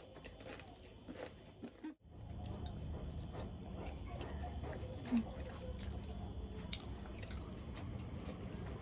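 Close-miked chewing and crunching of food, with small wet mouth clicks. The sound drops out for a moment about two seconds in, after which a steady low hum runs underneath, and a single sharp click stands out about five seconds in.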